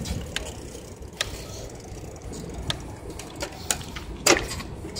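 Outdoor city ambience: a steady low rumble of distant traffic with scattered sharp clicks and knocks, the loudest about four seconds in.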